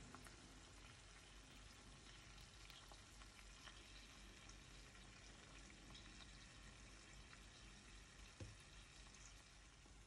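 Faint sizzling of chicken and tomatoes frying in oil in a stainless steel skillet, with scattered small crackles and one sharper pop about eight seconds in.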